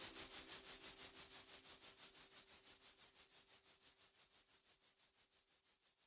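Background music fading out: a fast, even pulsing hiss, about six beats a second, and a faint held note die away gradually.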